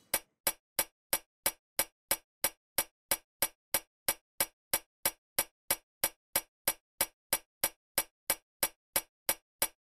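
A steady ticking sound effect: sharp, evenly spaced ticks, about three a second, with silence between them.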